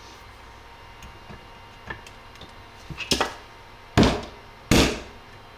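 Hammer blows on a punch-type tool, driving a part out of a 3D-printed airsoft lower receiver: a few light taps, then two loud knocks close together near the end.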